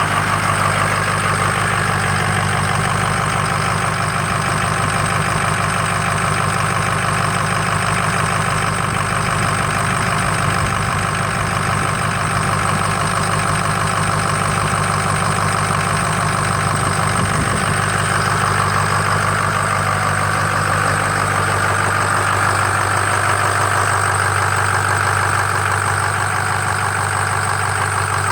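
Cold engine idling steadily with a light squeal from the ribbed serpentine belt, though the belt and water pump are new and all the idler pulleys turn freely.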